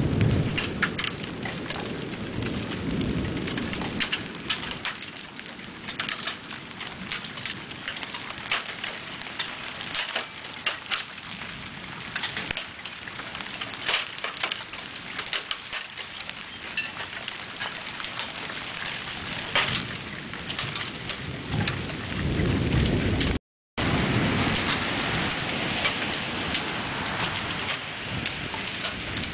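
Rain falling hard during a severe thunderstorm, full of sharp ticks of drops striking the roof and gutters. A low rumble comes in the first second and again a few seconds before the end.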